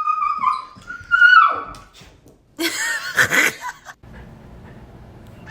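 A pet animal crying out: first a drawn-out high call that holds and then bends up, then a harsher, noisy cry about two and a half seconds in, lasting about a second.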